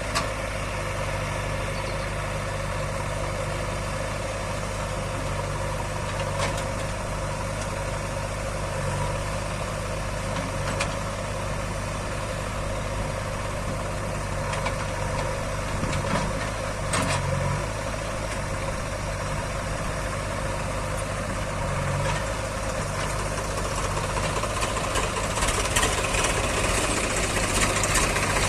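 Heavy diesel engine running steadily at a low, even speed, with a few brief clanks along the way and more high-pitched noise near the end.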